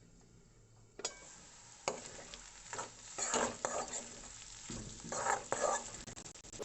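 A spatula stirring and scraping potatoes frying in a pan, with sizzling underneath. The strokes begin about a second in, after a sharp click, and come in uneven bursts.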